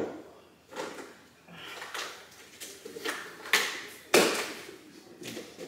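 Kitchen clatter: a string of separate knocks and clacks, roughly one a second, as things are handled and set down at a kitchen counter. The loudest come a little past the middle.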